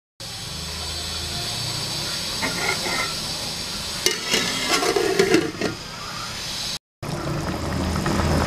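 Marinated chicken sizzling and bubbling in its juices in an aluminium pot over a medium flame, a steady hiss. A few sharp knocks and clatters come about four to five seconds in.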